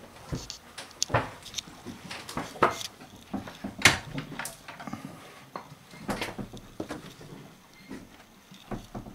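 Irregular knocks and clicks from someone moving about a yacht's wooden cabin interior, with the sharpest knock about four seconds in.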